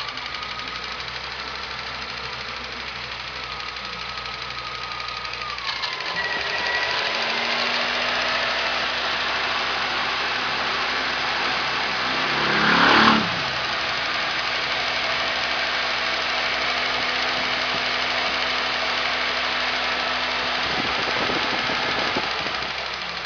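Ford Escort's Volkswagen AP four-cylinder engine running with a knocking tap, which the uploader's tags put down to a hydraulic lifter (tucho). The engine picks up speed about six seconds in, is revved sharply once near the middle, and drops back to idle near the end.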